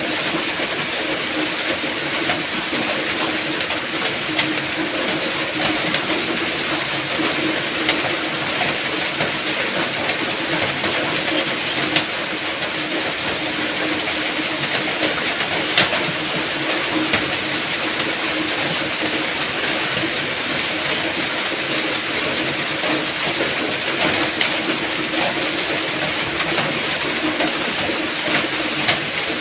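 Steady rain falling in an even hiss, with a few sharper drop ticks now and then.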